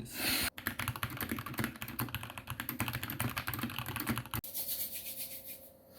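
Fast typing on a cheap Red Thunder gaming mechanical keyboard, a rapid run of key clicks that stops about four and a half seconds in and is followed by a few fainter keystrokes. It is a sound test of the stock board, which is judged pretty bad.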